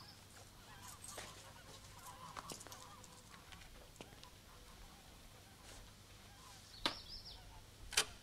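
Quiet room tone with a few scattered small clicks and knocks, the two sharpest coming about seven and eight seconds in.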